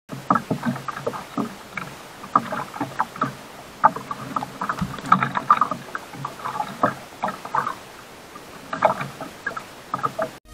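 Irregular knocks, taps and splashy slaps around a small outrigger fishing boat as a handline is hauled in and a triggerfish is brought aboard, over a soft steady hiss of sea and wind.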